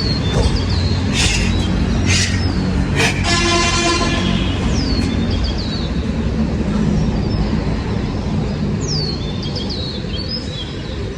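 Steady low traffic rumble, with a horn-like pitched toot about three seconds in that lasts a couple of seconds, and small birds giving repeated short falling chirps.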